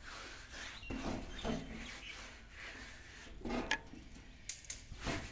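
A bare hand rubbing and smearing wet ground-rice paste across a tin sheet in irregular strokes, with a few sharp clicks in the second half.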